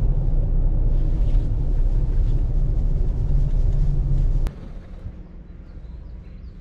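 Loud, steady low rumble of a car ferry under way, heard from inside a car parked on its vehicle deck. It cuts off suddenly about four and a half seconds in, giving way to a much quieter low hum with faint high chirps near the end.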